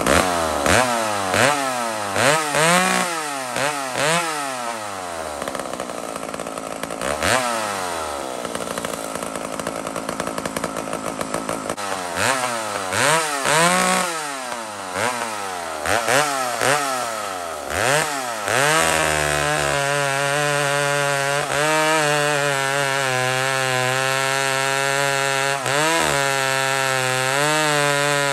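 McCulloch Mac 125 SP two-stroke chainsaw revved in repeated quick throttle blips, rising and falling in pitch. About two-thirds of the way through it goes to steady full throttle as the chain cuts into a large log.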